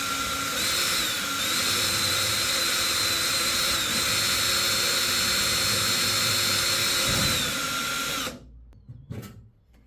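Electric drill running steadily, boring a hole of about 20 mm through a 5 mm acrylic (plexiglass) sheet for a fingerprint sensor; it stops about eight seconds in, followed by a few faint knocks.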